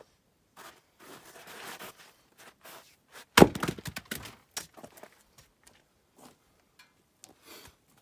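An axe strikes a firewood round on a chopping block once, a single sharp crack as the wood splits, followed by the split pieces knocking and clattering onto the wood below. A few faint scattered knocks follow.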